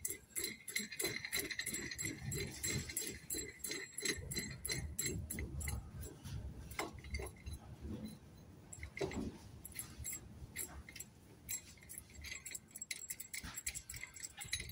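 Metal clicking and clinking of a wrench as it backs a nut off the threaded bar used to press in a shock absorber's lower bush. The clicks come quickly through the first half and grow sparser later.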